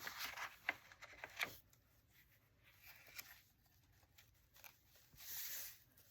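Paper and cardstock being handled and pressed down: a few sharp clicks and rustles in the first second and a half, then a brief swish of paper sliding a little after five seconds in.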